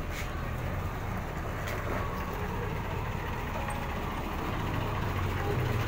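Truck engine running steadily at a low, even speed.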